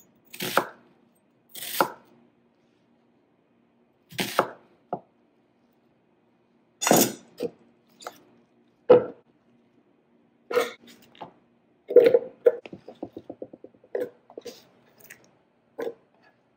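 Knife cutting up an onion on a cutting board: irregular single chops, with a quick run of small clicks about twelve seconds in.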